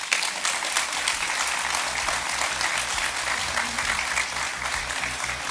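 An audience applauding: dense clapping from many hands that starts suddenly and holds steady, easing a little near the end.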